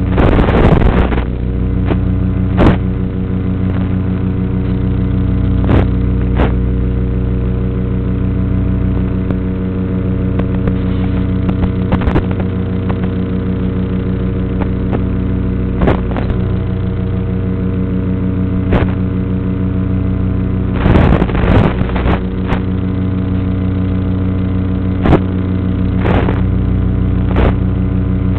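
FPV quadcopter's onboard audio: a steady, loud buzz in several pitched layers. It is broken by about a dozen short crackles and by longer bursts of static near the start and about 21 seconds in.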